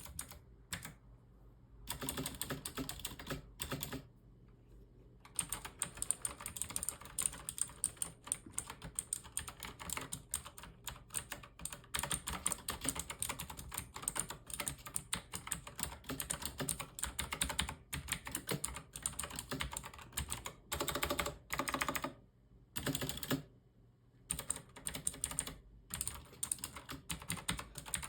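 Typing on a White Shark GK-1925HU Spartan mechanical gaming keyboard with blue switches: fast runs of clicky keystrokes, broken by a few short pauses.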